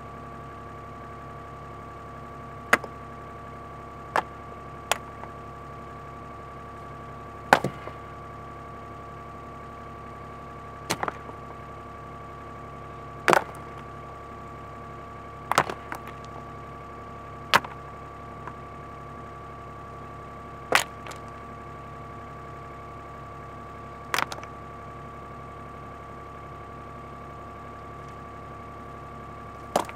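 Excavator engine running at a steady speed, with about ten sharp knocks at irregular intervals, a few seconds apart.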